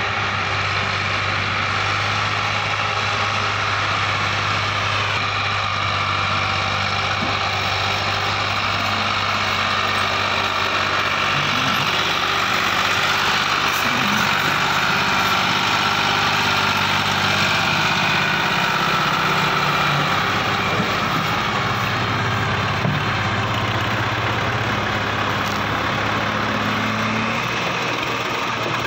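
Massey Ferguson 260 tractor's diesel engine running steadily under the heavy load of a soil-laden trolley, working hard enough to lift the front wheel. The engine note shifts up and down a few times as the load changes.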